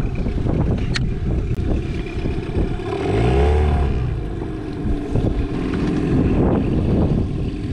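Boat's outboard motor running in reverse, revving up and back down about three seconds in, then settling to a steadier note. The owner grumbles about its gearbox. Heavy wind buffets the microphone throughout.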